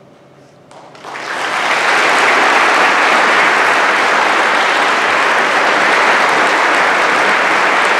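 Audience applauding: a few scattered claps about a second in, then applause rising quickly to a full, steady ovation.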